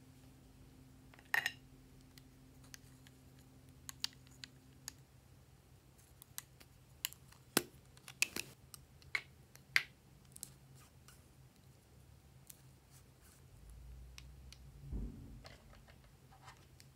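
Scattered sharp clicks and taps of plastic lip crayon and lipstick cases being opened and handled, about a dozen in all, with a soft low thump near the end.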